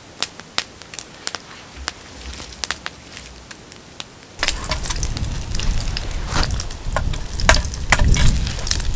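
Wood campfire crackling and popping in sharp separate snaps. About four seconds in, a low rushing rumble comes in and the crackling grows louder and denser.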